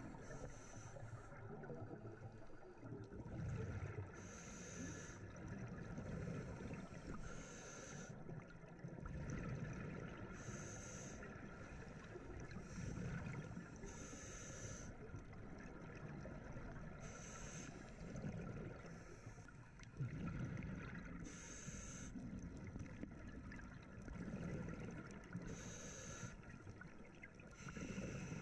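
Scuba diver breathing through a regulator underwater: a short hissing, bubbling breath about every three to four seconds, over a steady low underwater rumble.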